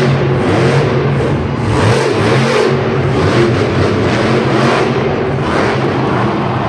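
Monster truck's supercharged V8 engine revving hard, its pitch rising and falling repeatedly as the truck wheelies and jumps.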